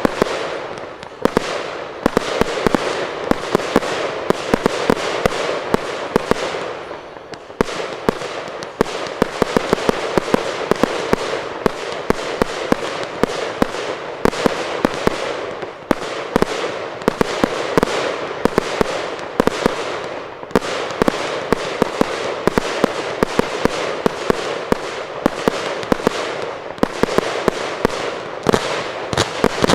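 Aerial fireworks display: a dense, continuous barrage of sharp bangs and crackling shell bursts, easing briefly about seven seconds in.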